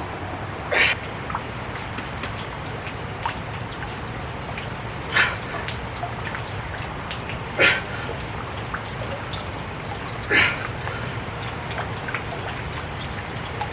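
Steady rain falling, with four short, sharp, louder sounds spaced a few seconds apart.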